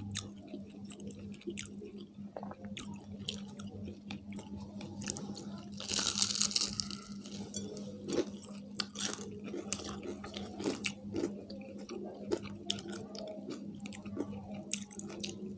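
Fried chicken being bitten and chewed, with irregular crisp crunches and wet mouth sounds, and a denser crackling crunch about six seconds in.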